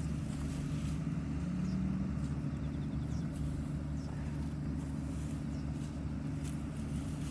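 Farm machinery engine running steadily in the rice field, a low, even hum.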